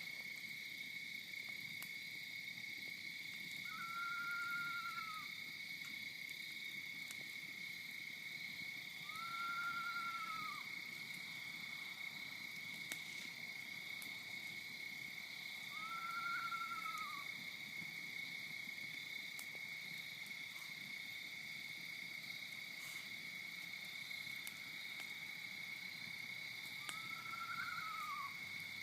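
An animal's call, a single pitched note about a second long that arches up and back down, repeated four times several seconds apart. It sounds over a steady high-pitched drone.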